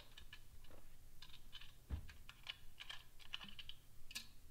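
Typing on a computer keyboard: a run of irregular key clicks, with a single dull thump about two seconds in.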